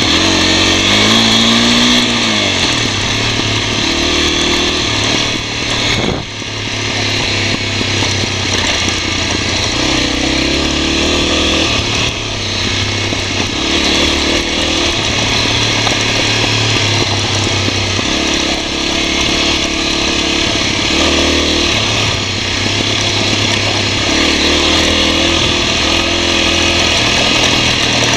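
Honda NX250's single-cylinder four-stroke engine running as the bike rides along a dirt trail, its pitch rising and falling with the throttle, over steady wind noise.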